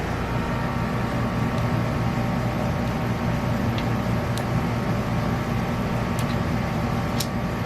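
Steady low hum and hiss with a few faint clicks.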